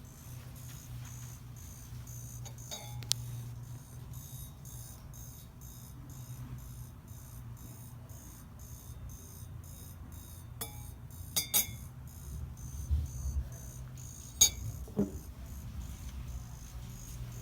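Glazed ceramic coffee cup holding coffee and creamer, chirping by itself: a continuous run of faint, quick high-pitched ticks, with a few sharper clicks scattered through, the loudest about two-thirds of the way in. The owner has no explanation for the chirping.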